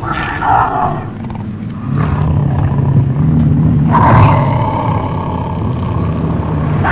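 Big-cat growl sound effect: a low rumbling growl that swells about two seconds in, with sharper bursts at the start and about four seconds in.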